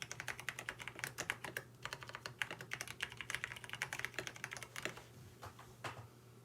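Typing on a KBD67 Lite mechanical keyboard with lubed Cherry MX Brown tactile switches and a PE foam mod: a rapid run of keystrokes that slows to a few separate presses near the end. The owner finds these switches scratchy, with an annoying 'tic' from housing wobble because no switch films are fitted.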